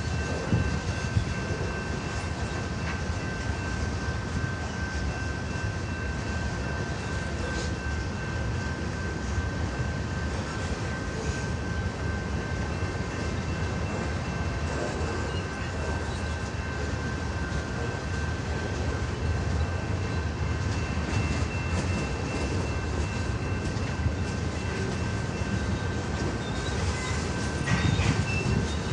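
CN freight train rolling past: a steady rumble of wheels on the rails with scattered faint clicks, and a thin, steady high-pitched whine running over it.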